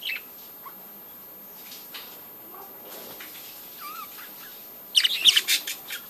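Budgerigars chirping: a short chirp at the start, a few soft calls, then a burst of loud, rapid chirps about five seconds in.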